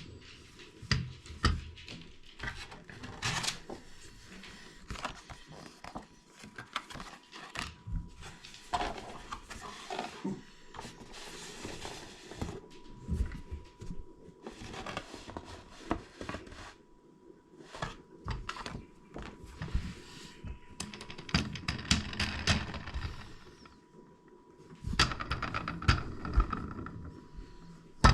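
Unboxing handling of a plastic baby-bouncer toy: irregular clicks and knocks of plastic parts with stretches of packaging rustle.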